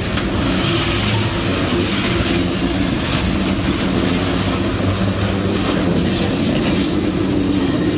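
Freight train tank cars rolling past close by: a steady, loud noise of steel wheels running on the rails.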